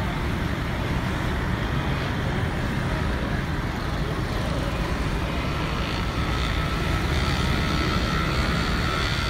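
Steady hum of busy street traffic, a constant wash of engine and road noise with no single vehicle standing out.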